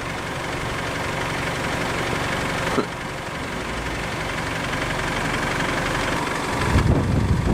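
A vehicle's engine idling steadily, with a louder low rumble near the end.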